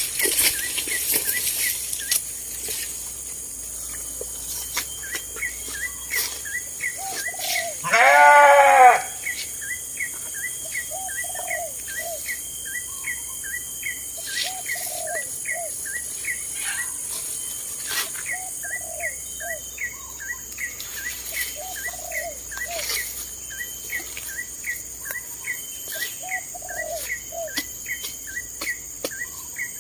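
A sheep bleats once, loudly, for about a second, some eight seconds in. Behind it small birds chirp rapidly and without a break, and a short lower call repeats every couple of seconds.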